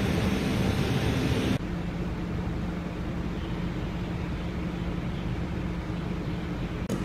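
Steady outdoor background noise, a hiss over a low hum. About a second and a half in it drops abruptly to a quieter, duller hum.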